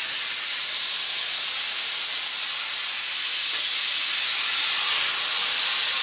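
Pressure cooker whistle letting off a loud, steady hiss of steam. It is the second whistle, the sign that the chana dal and rice khichdi inside is cooked.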